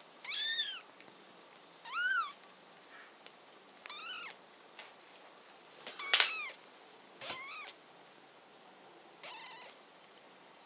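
A very young exotic shorthair kitten mewing six times, short high cries that rise and fall in pitch, the loudest about halfway through.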